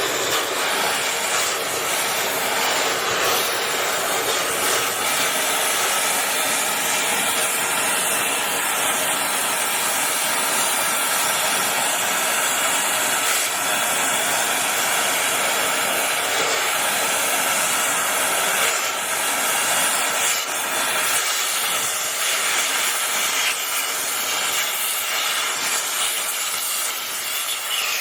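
Oxyacetylene cutting torch with a number 3 tip hissing steadily as it cuts through 1.25-inch thick steel plate.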